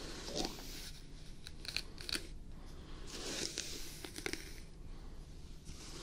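Hairbrush bristles drawn through long hair close to the microphone: a series of scratchy brushing strokes, a few with sharp crackles.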